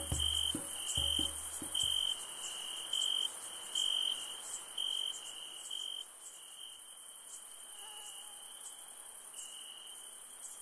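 Chirping insects: a steady string of short, high chirps over a thin high hiss, getting quieter after about six seconds. A few low music notes end about two seconds in.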